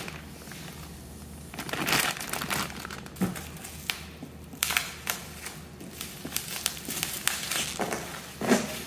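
Bubble wrap and plastic packaging crinkling and rustling as it is pulled off a stainless exhaust part. It starts about a second and a half in and goes on irregularly, with scattered sharp crackles.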